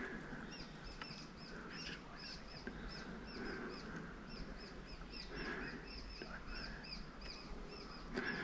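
A bird calling a steady series of short high chirps, about three or four a second, with softer lower calls now and then.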